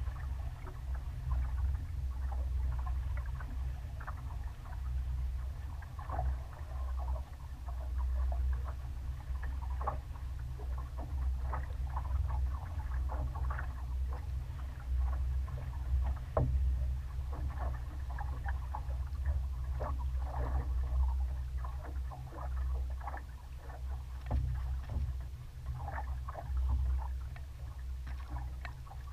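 A sailboat under way in a breeze: a steady low rumble of wind on the microphone, with light irregular flapping and ticking sounds through it.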